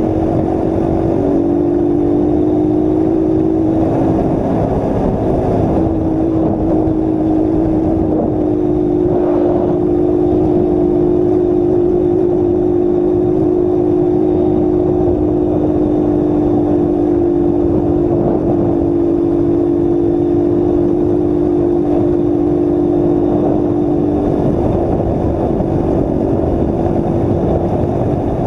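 A 1996 Honda CG 125 Titan's single-cylinder four-stroke engine running at a steady cruise, its pitch holding almost level, with wind rushing over the action-camera microphone.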